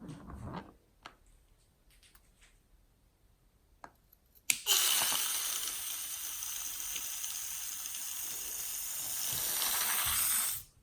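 A steady rushing hiss, like air or water streaming out, starts with a sharp click about four and a half seconds in and cuts off abruptly near the end.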